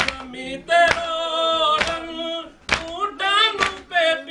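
A group of men chanting a Shia noha (lament) in chorus, with a steady chest-beat (matam) of hands slapping chests landing about once a second.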